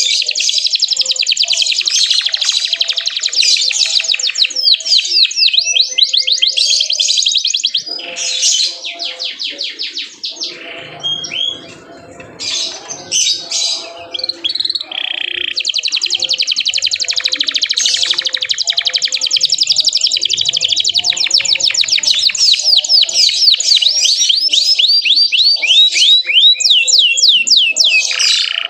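Domestic canary singing long, fast trills of rapidly repeated high chirps, breaking off into softer, scattered notes for a few seconds in the middle before the trilling resumes.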